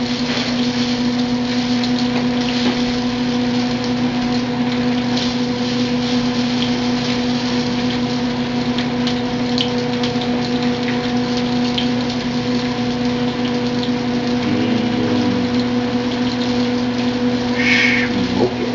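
Two goose breasts sizzling in a hot cast-iron pan of butter and oil, over the steady hum of a kitchen range-hood vent fan.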